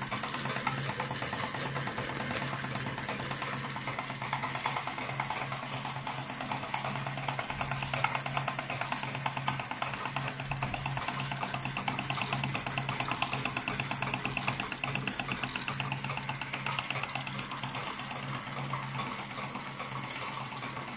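1919 Märklin 4135 toy steam engine running under load, driving small Märklin workshop models through string belts and pulleys: a rapid, even mechanical clatter with a steady low hum and a thin high whine that wavers. The piston is unoiled, so the engine runs below its proper speed.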